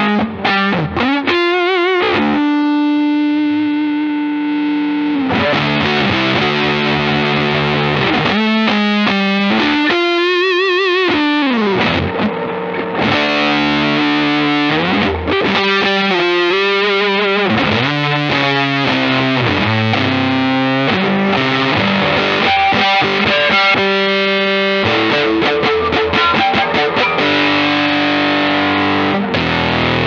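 Electric guitar played through a Death By Audio Apocalypse fuzz pedal on its Dual J-FET setting: heavily fuzzed, sustained notes and chords with slides and string bends, and a wavering vibrato about ten seconds in.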